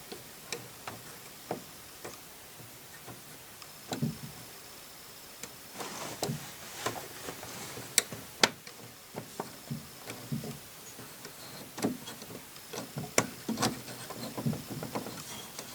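Irregular clicks and light knocks of wooden parts being handled, with a few heavier thumps.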